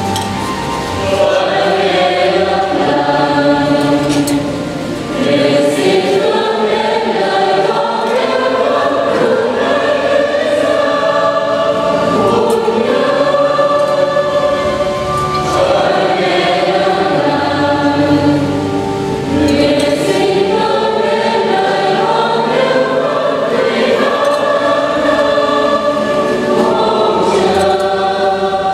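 Choir singing a hymn in several voices, in long sustained phrases with a short breath break about five seconds in.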